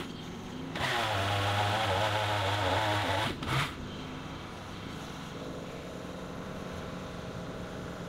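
Power pruner, a small chainsaw on the end of a pole, running and cutting overhead through a branch for about two and a half seconds, its pitch wavering under load. It stops about three and a half seconds in, leaving a lower steady hum.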